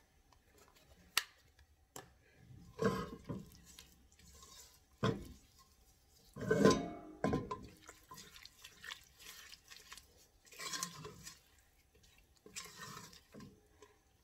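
Silicone spatula stirring and scraping thick blueberry pie filling in a stainless steel pot, in uneven bursts with the spatula knocking against the pot's side. Two sharp clicks near the start as the cinnamon shaker is handled.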